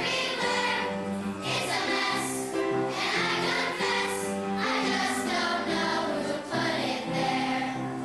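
A children's choir singing in unison with instrumental accompaniment, in a steady, continuous performance.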